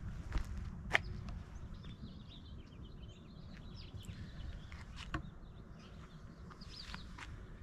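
Outdoor ambience: faint small-bird chirps scattered over a steady low rumble, with a few sharp clicks, the two strongest about a second in and another a little after five seconds.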